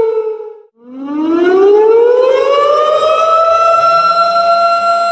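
Tsunami warning siren of the civil-defence kind: its tone falls in pitch and dies away in the first second. After a brief gap it winds up again, rising in pitch and settling into a steady high tone about three seconds in.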